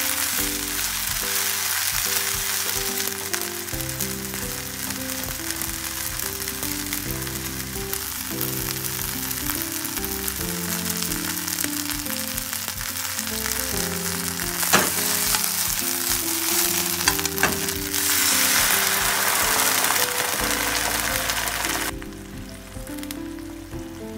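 Abura-age (deep-fried tofu) strips and sliced long green onion sizzling in sesame oil in a frying pan over medium heat, browning, with a few clicks as they are turned with chopsticks. The sizzle drops away shortly before the end.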